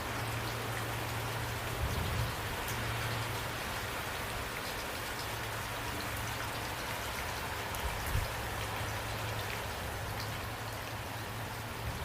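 Steady rain pattering on a surface, an even hiss with a low steady hum beneath it. Two soft low thumps stand out, about two seconds in and about eight seconds in.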